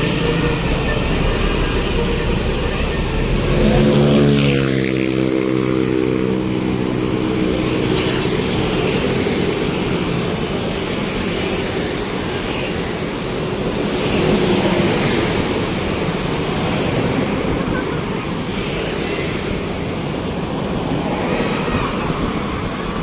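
A heavy vehicle, most likely a bus, passes close by: its deep engine rumble peaks about four seconds in and its pitch drops as it goes past, followed by steady road traffic noise.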